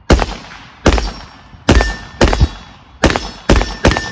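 AR-15 rifle in 5.56 NATO fitted with a budget muzzle brake, fired semi-automatically: seven sharp shots at uneven spacing, about half a second to a second apart, each with a short echoing tail.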